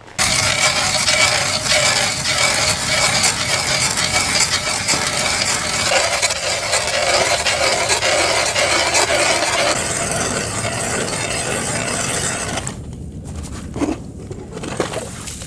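Ice auger boring a fishing hole through lake ice: a steady, loud grinding of the cutting blades that starts abruptly and drops away about thirteen seconds in, followed by a few light knocks.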